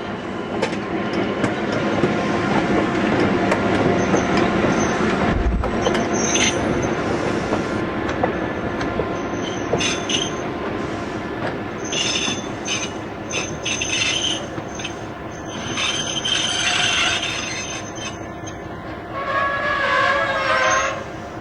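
Locomotive running past with its Nathan M3 air horn sounding over a steady rumble of engine and wheels on the rails. A clear horn chord stands out near the end.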